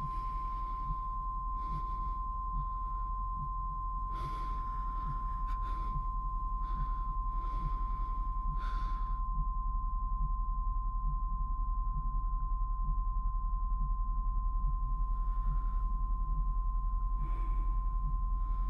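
A person breathing heavily in and out, the breaths coming every second or two, over a steady high-pitched tone and a faint low pulsing. The breathing stops for several seconds in the middle and resumes near the end.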